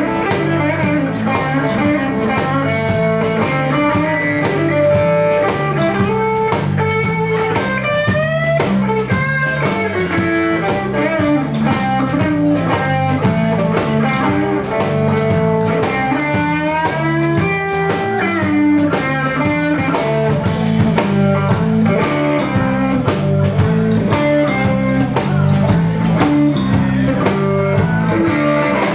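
A live blues-rock band playing an instrumental passage: a Telecaster-style electric guitar takes the lead with bent notes over a repeating bass line and drum kit.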